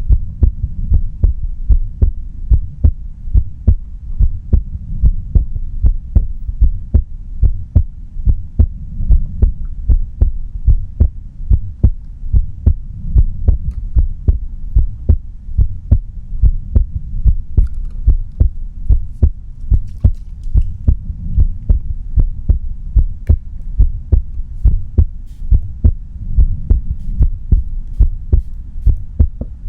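A person's heartbeat heard up close: deep thuds in a steady, even rhythm.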